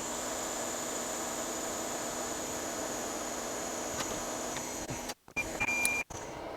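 Steady hum and hiss from running workbench equipment, with a thin high whine over it. Near the end come a few short, high electronic beeps, and the sound drops out twice briefly.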